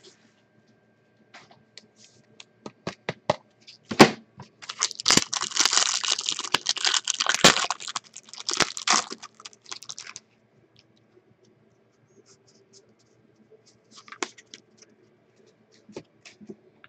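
A trading card pack wrapper torn open and crinkled for several seconds, after a few light clicks and one sharp snap, followed by a few faint clicks as the cards are handled.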